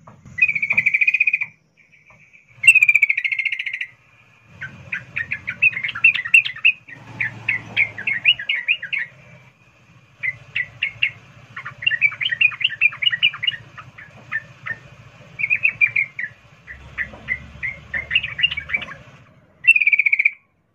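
Female yellow-vented bulbul calling in breeding condition with its rolling call. There are two long buzzy trills, then long runs of rapid chattering notes, then another buzzy trill near the end.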